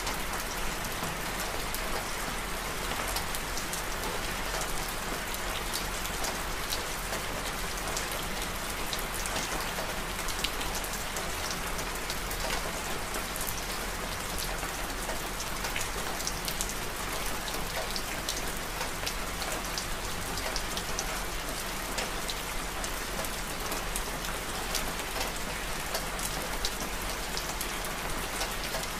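Steady rainfall: an even hiss with many single drops ticking sharply on top.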